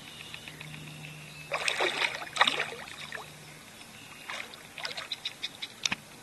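Water splashing and sloshing for about a second and a half as two mating turtles dive under the surface, followed by light lapping and dripping as the swirl settles.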